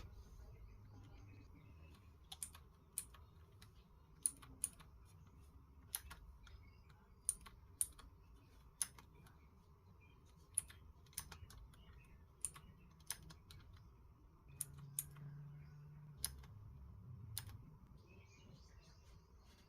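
Faint, irregular clicks of keys being pressed on a laptop keyboard, roughly one a second, over a low hum.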